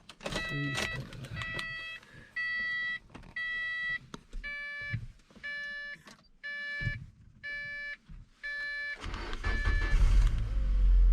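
A car's electronic warning chime beeping about once a second, about ten times, then about nine seconds in the engine is started and runs with a low rumble.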